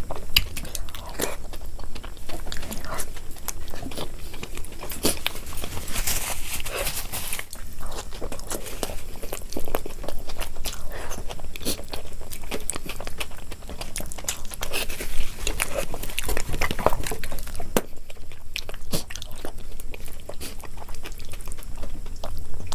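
Close-miked eating: repeated bites and chewing with crunching and wet mouth sounds.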